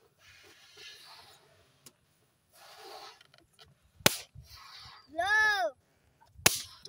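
Breath blowing into rubber balloons, then a balloon pops with a sharp crack about four seconds in. A loud voice-like call that rises and falls in pitch follows, and a second balloon pops near the end.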